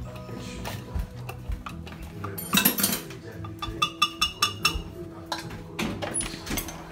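Metal spoon stirring inside a glass blender jar of ground crab liquid, clinking against the glass: a couple of sharp clinks, then a quick run of ringing clinks about four seconds in, and a few duller knocks near the end.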